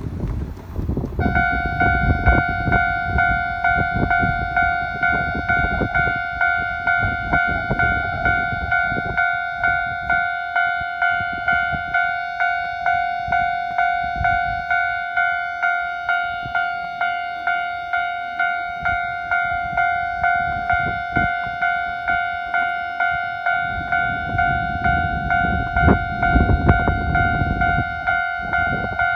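Japanese railway level-crossing alarm starting about a second in and then ringing on at an even pace of about two strikes a second, with wind rumble on the microphone underneath.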